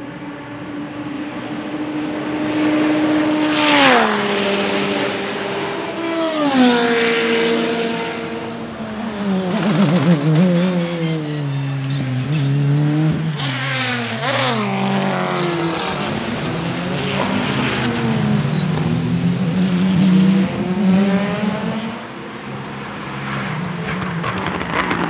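Sport prototype race car engines at high revs, dropping in pitch in two sharp steps as the car downshifts under braking. Then several race engines rev up and down, overlapping as cars accelerate out of corners and pass by.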